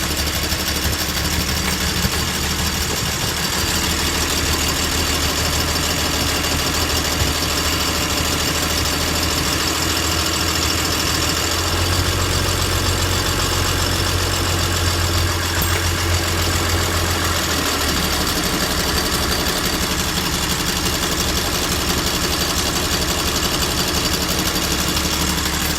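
Boat's 4.2-litre turbodiesel engine idling steadily, with its idle speed just raised after repair of its injection pump. The low hum grows heavier for a few seconds in the middle, then settles back.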